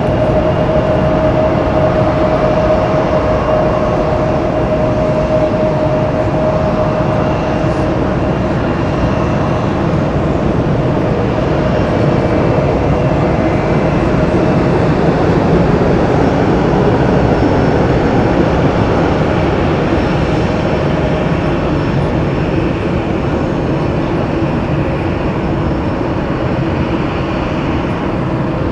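Jet airliner engines running loud: a broad, steady rumble with a whine that fades out over the first several seconds. The rumble swells to its loudest a little past the middle and then eases off.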